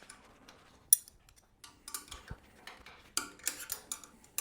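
Scattered light clicks and clinks of hard parts being handled, with a sharp click about a second in and a quick run of clicks and scrapes near the end, as the bed's frame bars and fittings are worked loose.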